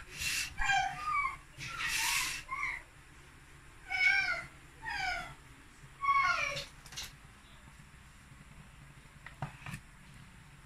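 A cat meowing over and over: a quick cluster of short falling calls, then three longer meows about a second apart. Two short rushes of noise come among the first calls, and a few faint clicks near the end.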